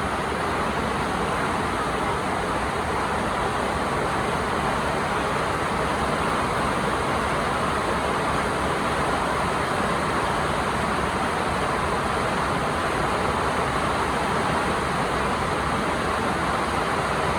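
Heavy rain pouring down: a dense, steady hiss that does not let up.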